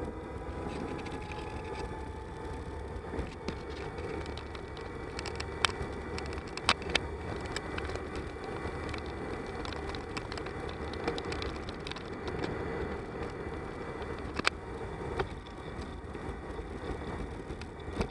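Steady wind and tyre rumble on a camera riding on a moving bicycle, with a few sharp clicks or knocks about six and seven seconds in and again near fifteen seconds.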